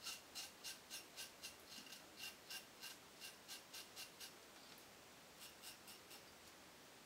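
Colonial General safety razor scraping through lather and stubble on the upper lip in short quick strokes, about three or four a second. A brief pause about two-thirds through, then a few fainter strokes.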